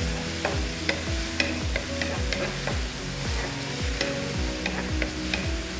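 Wooden spatula stirring sliced vegetables frying in oil in a nonstick wok: sizzling, with irregular clicks and scrapes of the spatula against the pan. Background music with a regular beat runs underneath.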